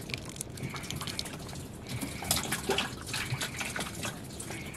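Water lapping and trickling against a small wooden boat's hull, with drips and small splashes close by as a handline is jerked in the water.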